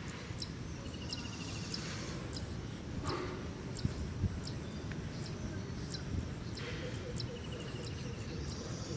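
Rural outdoor ambience: a steady low rumble with many short high chirps and ticks, and a brief fast trill heard twice, about a second in and again near the end.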